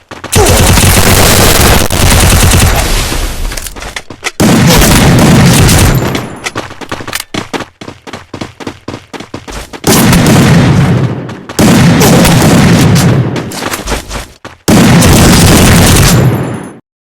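Close thunder: about five sudden, very loud cracks, each rumbling for a second or two before dying away, with near quiet between. The claps are loud enough to overload the recording.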